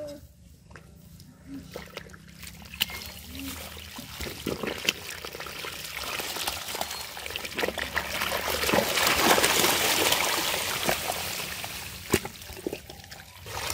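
Wet mud being chopped and scraped with a hand digging tool at a burrow in a muddy bank, with squelching and splattering of muddy water. The sound grows louder after a few seconds and eases off near the end.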